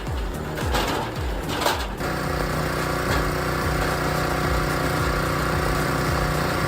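Machinery running: repeated rhythmic knocks for about two seconds, then an abrupt change to a steady engine note that holds at one speed.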